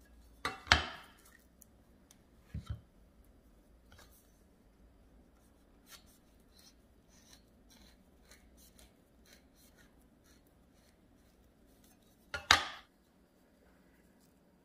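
A chef's knife cutting avocados on a wooden cutting board: two loud sharp knocks, one just under a second in and one near the end, a smaller knock at about two and a half seconds, and faint tapping and scraping between.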